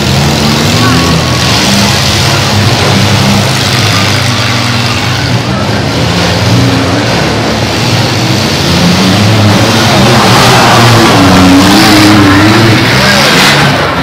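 Several compact demolition-derby cars' engines revving hard at once on the dirt track, their pitches rising and falling as they accelerate and ram, most strongly near the end.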